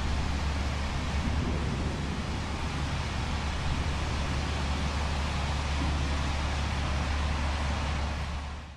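Wind buffeting the camera microphone: a steady low rumble with an even hiss over it, fading out near the end.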